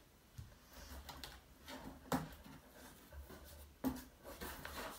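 Cardboard box being opened by hand: faint scattered rustles and scrapes of the flaps, with two sharper knocks about two seconds in and just before four seconds.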